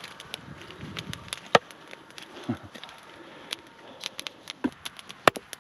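Wood fire crackling, with irregular sharp pops and snaps every half second to a second.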